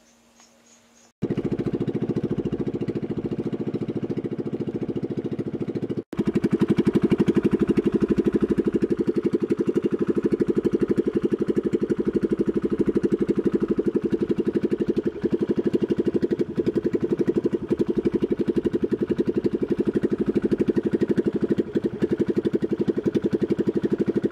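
Outrigger motor boat's engine running steadily underway, with a fast even beat. It starts abruptly about a second in, breaks off for an instant at about six seconds, then runs on louder.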